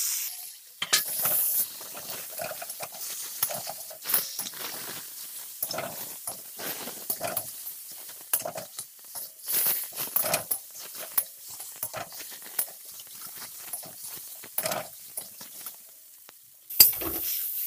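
Flat metal spatula stirring fried potato pieces through spiced masala in a metal kadai, with irregular scrapes and knocks against the pan over a light sizzle.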